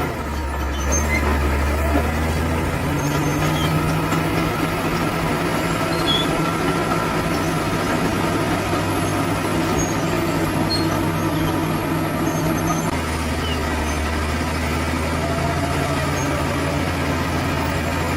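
Bulldozer's diesel engine running steadily at work, its low note changing about two-thirds of the way through.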